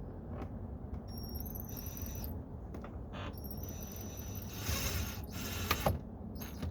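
Drill with an extension and 7 mm socket running in two bursts, a short one and then a longer one, driving screws into a plastic door panel. It gets louder and rattles near the end of the second burst as the screw seats.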